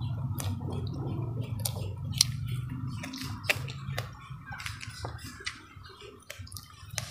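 Close-miked chewing of grilled pomfret and rice: irregular wet mouth clicks and smacks as she eats. A low steady hum sits under the first half and fades about three and a half seconds in.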